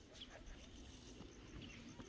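Near silence, with a few faint, scattered ticks.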